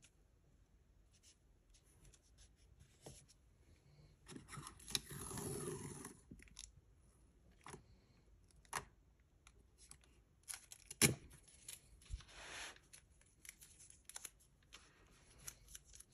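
Paper washi tape being handled on a planner page. It is peeled and torn, with a ripping sound lasting about two seconds from about four seconds in and a shorter one after a sharp tap about eleven seconds in. Small taps and rustles of paper come in between.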